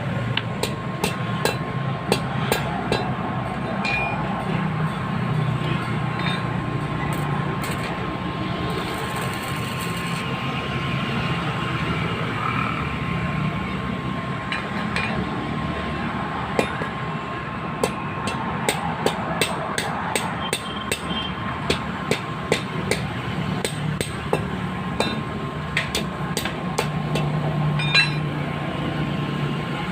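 Irregular sharp clicks, taps and metallic clinks of hand tools working on metal parts, over a steady background hum.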